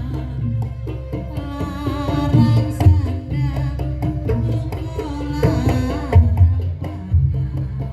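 Live Javanese jaranan accompaniment music: heavy, booming drum strokes under a melody whose notes bend up and down.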